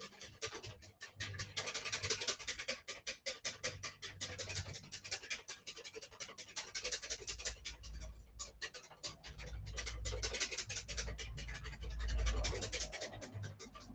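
Hand whisk beating egg yolks and oil into mayonnaise in a bowl: a rapid, rhythmic scraping of several strokes a second, with a brief pause about eight seconds in. It is whisked fast so the emulsion doesn't split.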